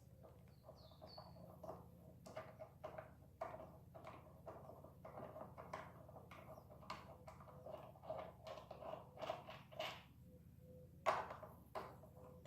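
Ratchet and 14mm socket working the front brake caliper mounting bolts loose: a run of short, irregular clicks and clacks, with a louder metal knock about eleven seconds in. A brief bird-like chirp sounds about a second in.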